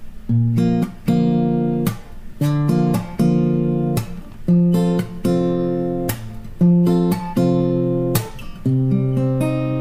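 Acoustic guitar strumming chords, a fresh chord struck roughly once a second and left to ring.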